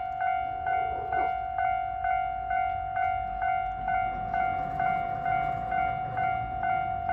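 Japanese level-crossing warning bell ringing its electronic ding about twice a second. The low rumble of a JR Kyushu 817 series electric train coming through builds up under it from about four seconds in.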